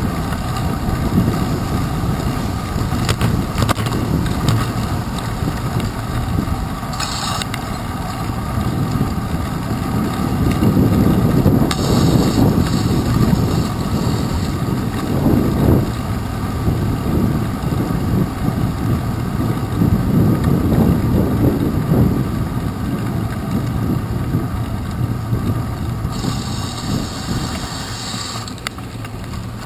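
Wind buffeting the microphone of a handlebar-mounted GoPro Hero 2 as a bicycle rides over wet pavement, heard as a steady, uneven low rumble. Brief spells of higher hiss come about seven seconds in, around twelve seconds in, and again near the end.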